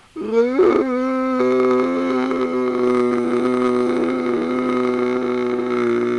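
A man's voice chanting one long, steady, droning tone in mock Buddhist style, sliding up into the note at the start. A lower undertone joins about a second and a half in.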